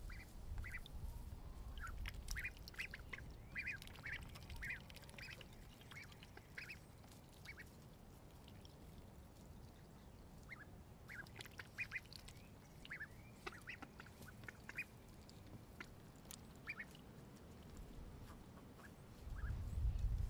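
Pekin and Khaki Campbell ducklings peeping: short, high calls in scattered bunches, faint overall. A low rumble comes in at the start and again near the end.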